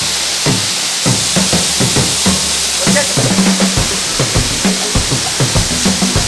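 Funky R&B background music with a steady drum-kit beat and a bass line, over a constant rushing hiss of falling water.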